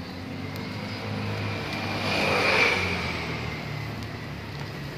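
A motor vehicle passing by, growing louder to a peak about halfway through and then fading.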